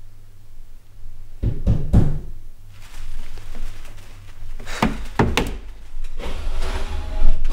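Knocking on a wooden door: two knocks about a second and a half in, then two more about five seconds in.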